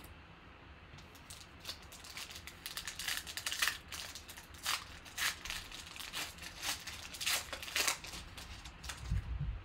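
Silver foil trading-card pack wrapper being torn open and crinkled by hand: a run of irregular crackles.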